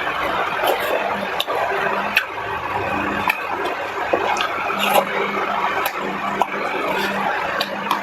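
A person eating: irregular wet clicks and smacks of chewing, a few every second, over a steady background hum.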